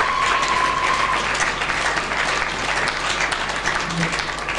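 Audience applauding, dense clapping that thins out near the end. A steady high-pitched tone sounds over the clapping for about the first second, then stops.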